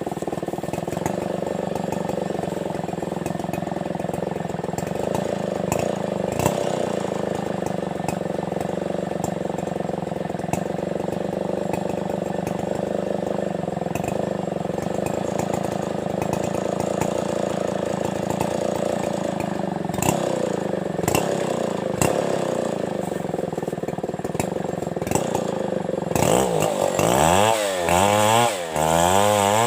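Chainsaw running steadily at full throttle at an even pitch, cutting through coconut-tree wood, with a few sharp knocks. Near the end it revs up and down repeatedly.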